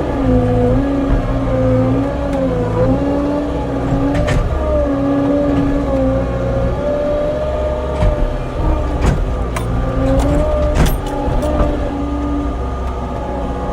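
Skid steer engine running under load, its pitch rising and falling as it works, with several sharp knocks, most of them in the second half.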